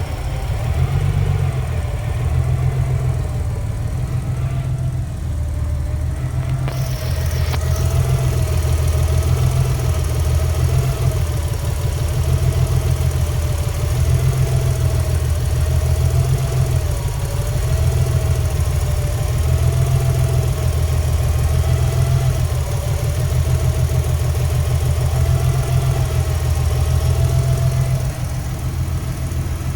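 Engine idling roughly with a misfire, its low beat uneven. A whine above it wavers up and down every couple of seconds, and a steady hiss joins in about seven seconds in.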